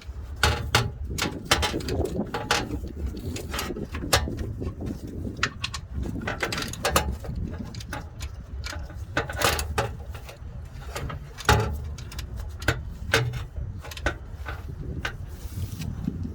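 Ratchet wrench clicking, with metal tools clinking, as the oil drain plug is fitted and tightened after the oil has drained; the clicks come irregularly in short runs.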